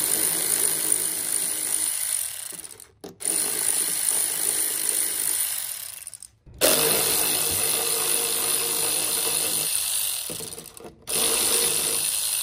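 ACDelco cordless electric ratchet running, spinning out the small bolts of a wheel-well splash guard. It runs in stretches of about three to four seconds, with brief pauses about 3, 6.5 and 11 seconds in.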